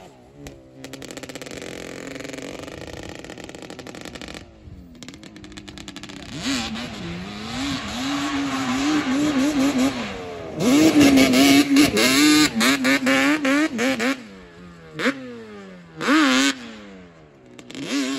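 Yamaha Banshee quad's twin-cylinder two-stroke engine on Toomey T5 expansion-chamber pipes, revving hard as it is ridden, its pitch climbing and falling again and again with the throttle. It is loudest a little past the middle, then eases off with two short, sharp throttle blips near the end.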